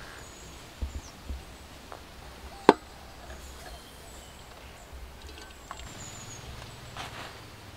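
Quiet outdoor background with faint high bird chirps, a few soft knocks about a second in and one sharp click a little before the middle.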